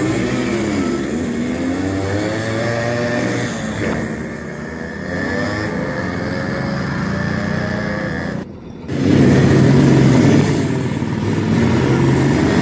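Two-stroke motorcycle engines running, their pitch rising and falling with the throttle. About two-thirds of the way through there is a brief dip, and after it the engine noise is louder.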